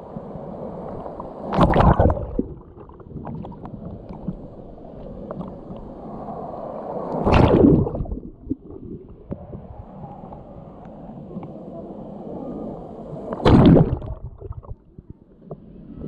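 Sea water sloshing right at the microphone of a camera held at the water surface, with three loud rushes about six seconds apart as breaking waves wash over it.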